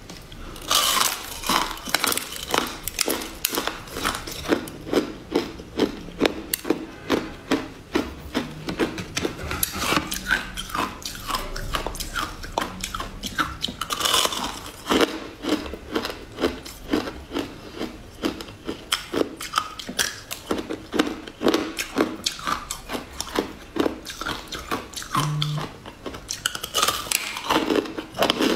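Biting and chewing of a crunchy purple food: a steady run of crisp crunches, a few a second.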